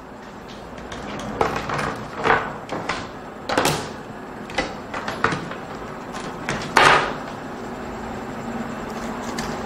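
Battery cables being handled and connected to the terminals: a series of irregular clicks and knocks, the loudest about seven seconds in.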